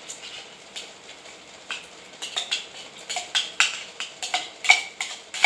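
Irregular clicks and clinks of cats eating wet mackerel food from plates, sparse at first and thicker from about two seconds in.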